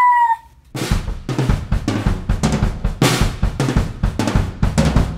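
A short, loud, rising whoop, then after a brief gap outro music: a drum-kit beat with heavy kick and snare hits that runs on to the end.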